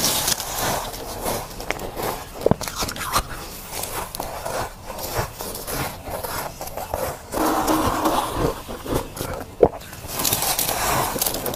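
Bites into a handful of powdery freezer frost, crunching and crackling repeatedly, with denser stretches of chewing in the second half.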